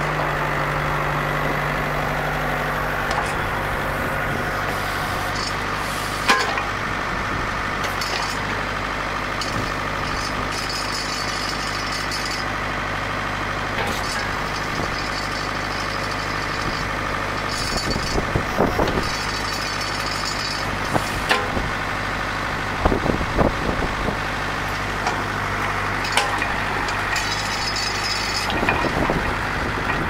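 John Deere 970 tractor's three-cylinder diesel engine running steadily while the backhoe's hydraulics swing the boom and work the bucket. A few sharp knocks break through, most of them in the second half.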